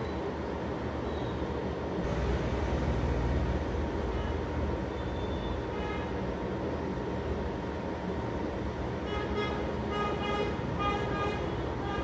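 Steady road-traffic noise with a low rumble swelling about two seconds in, and a few short pitched tones near the end.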